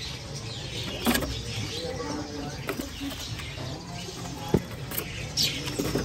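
Bird market background: a steady low hum with faint distant voices and scattered bird chirps, including a short high falling chirp near the end. A sharp click about four and a half seconds in.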